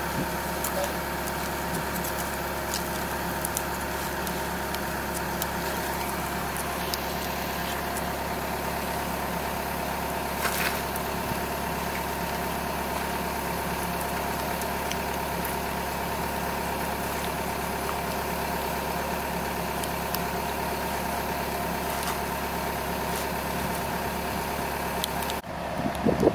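A diesel excavator engine idling steadily, a drone of several even tones, which drops out for a moment near the end. Over it come faint scattered clicks and scrapes of a metal pick clearing packed dirt from a clogged grease point on the bucket linkage.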